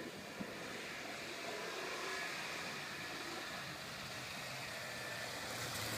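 Vehicle, most likely the Chevrolet Avalanche pickup, running in the snow: a steady, even noise without distinct events.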